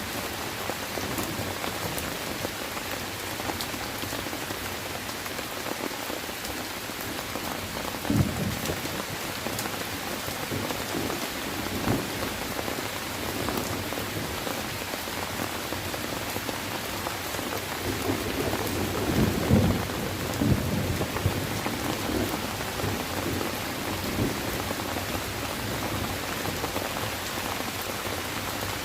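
Steady heavy rain falling on leaves and ground, with a few short low rumbles of thunder, once about a third of the way in and several together about two-thirds of the way through.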